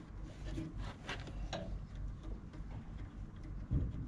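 Faint, irregular small metal ticks and clicks of a 3 mm Allen key working the grub screws loose in a hydraulic pump pulley, over a low background rumble.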